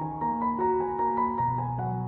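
Background music: gentle piano melody with sustained notes and a held bass note entering near the end.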